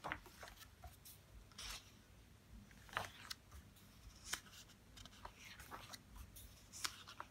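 Pages of a book being turned by hand: faint, short paper flicks and rustles, several of them, a second or so apart.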